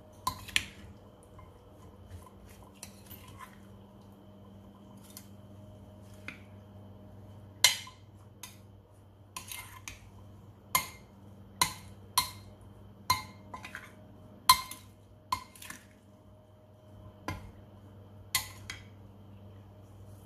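Serving spoon knocking against a ceramic bowl while a salad is tossed: a series of sharp clinks at uneven intervals, with a faint steady hum underneath.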